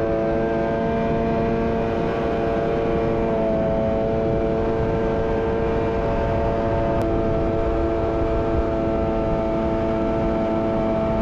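Jet ski engine running at a steady cruising speed, with the rush of water and wind underneath. The engine note sags slightly about three seconds in and climbs again near the end.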